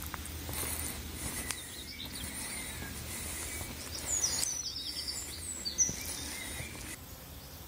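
Footsteps on a dirt and fine-gravel path, with a steady low rumble on the microphone. A small bird sings a few quick chirping phrases a little after halfway.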